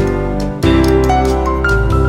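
Background music: sustained instrumental notes with a brief dip about half a second in.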